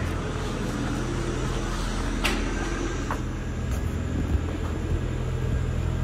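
Steady low hum of a running engine over street noise, with a couple of light clicks about two and three seconds in.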